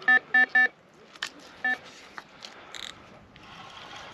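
Electronic carp bite alarm beeping as a fish takes line: three quick beeps, then one more, the signal of a bite. A few clicks and a stretch of noise follow near the end.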